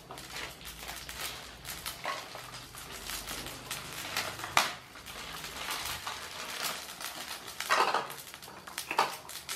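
Fresh yakisoba noodles being pulled apart by hand on a china plate: soft rustling of the noodles and irregular clinks and knocks of the plate, with a sharp knock about four and a half seconds in and louder rustles near the end.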